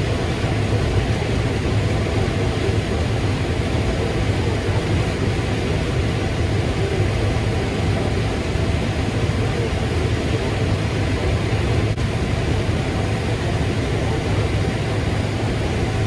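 New Holland combine harvesting corn, heard from inside the cab: a steady drone of the engine and the header and threshing machinery, with a strong low hum underneath.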